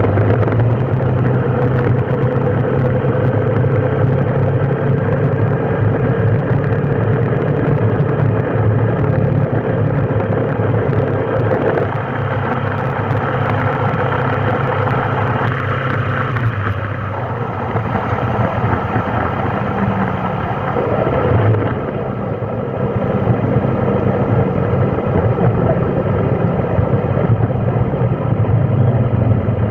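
Road traffic: a vehicle engine running steadily under a rushing haze of road noise, its low hum easing and shifting a few times.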